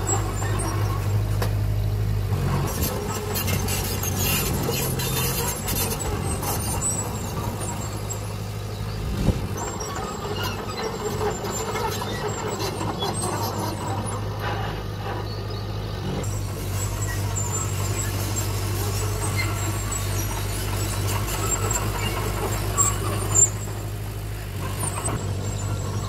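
Diesel engine of a small crawler bulldozer running steadily under work, with squealing and sharp knocks from the machine about 9 seconds in and twice about 23 seconds in.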